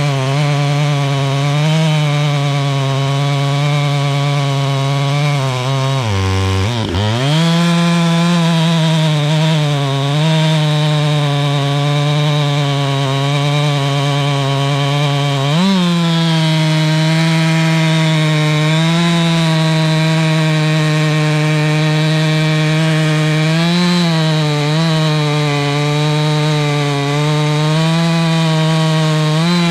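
Husqvarna chainsaw running at high revs, cutting through a large log. About six seconds in its pitch dips sharply for about a second, then comes back up to speed.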